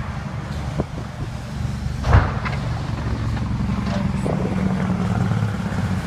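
Heavy vehicle engines rumbling low and steady on a snowbound highway, growing louder in the second half, over a hiss of wind. A single sharp thump about two seconds in is the loudest sound.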